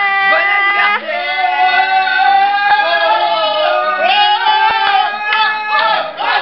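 Loud singing with music playing, including a long held note through the middle; choppy sung or shouted syllables come back near the end.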